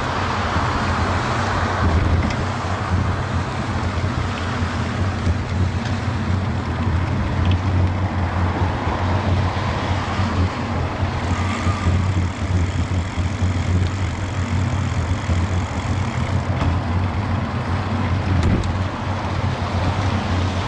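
Steady wind rumble on a bicycle-mounted action camera's microphone while riding, a continuous low roar with a hiss above it.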